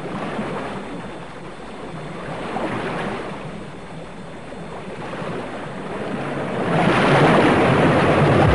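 Whitewater rapids rushing and churning in a steady roar of water that swells and ebbs, growing louder near the end.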